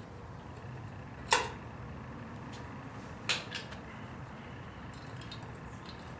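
Hand tools clinking against metal parts: one sharp clink about a second in, two lighter ones a couple of seconds later, then a few faint ticks.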